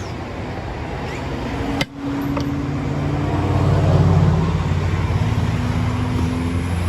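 A motor vehicle's engine running steadily, with a brief cutout about two seconds in.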